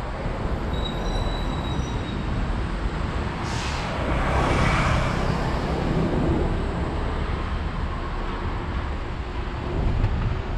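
Wind rushing over the microphone of a moving bicycle, with steady low road and traffic rumble; a louder rush swells and fades about four seconds in.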